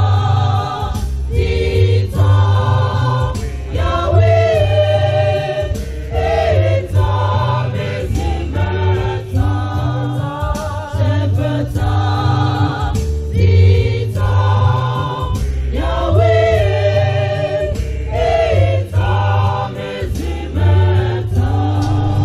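Choir of young women singing a hymn, over a deep pulsing bass beat.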